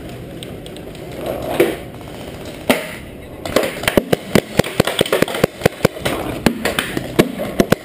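Paintball markers firing: a single pop a little under three seconds in, then a rapid, irregular string of sharp pops, several a second, from about three and a half seconds in.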